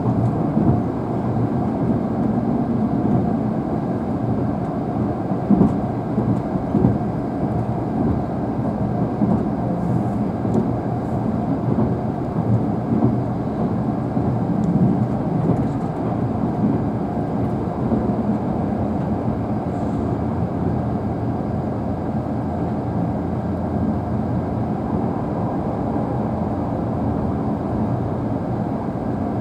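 Tobu Spacia X (N100 series) limited express electric train running, heard from inside a passenger car: a steady low rumble of wheels on the rails.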